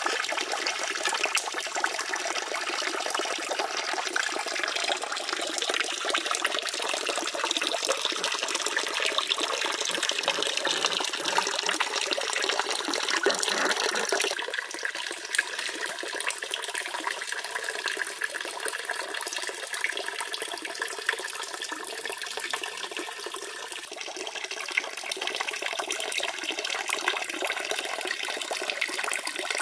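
Steady running water from a small statue fountain, its stream splashing and trickling into a pond. The sound drops a little about halfway through.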